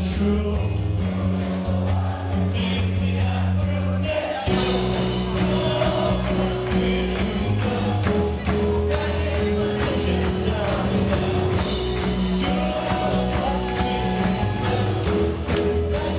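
Live band playing an upbeat pop song, with a male voice singing over drums and a stage piano. About four seconds in, the music changes and fills out.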